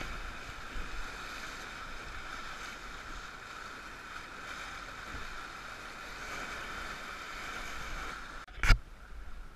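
Whitewater rapids rushing and churning around the bow of an inflatable raft, a steady hiss of moving water. Near the end a single sharp click cuts through, the loudest moment.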